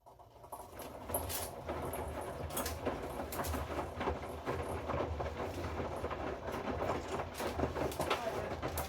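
Hoover inverter washing machine's drum starting to turn about half a second in, then tumbling a load of wet rags with a steady low motor hum and continuous clattering and clicking from the load inside the drum.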